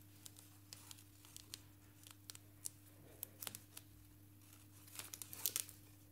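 Yellow backing liner being peeled off self-adhesive foam gasket tape as the tape is pressed down onto a panel: faint, scattered crackles and ticks, with a louder cluster of them near the end.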